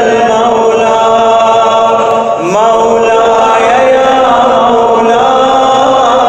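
A man chanting an Arabic supplication solo, slow and melodic, with long held notes. There is a short break about two and a half seconds in, then a new phrase begins with a rising glide in pitch.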